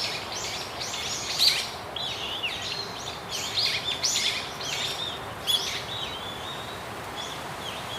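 Small birds chirping: short high calls, many sweeping downward, repeating every half second to a second, over a steady background hiss.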